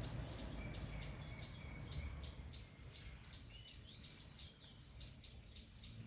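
Small birds chirping: a quick run of short high chirps, several a second, with a couple of brief whistled rising notes. Under them is a low rumble that eases off about halfway through.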